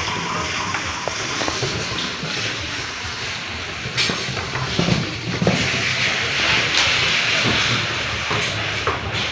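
Raw shrimp being tipped from a plastic basket into a styrofoam box, then spread around by hand: a few sharp knocks about four and five seconds in, and a rustling slither of shrimp toward the end, over a steady hiss.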